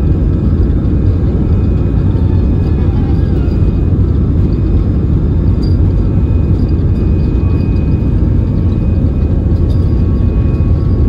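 Steady low rumble of an Airbus A320-216's CFM56 engines and rushing air at takeoff thrust, heard inside the cabin over the wing.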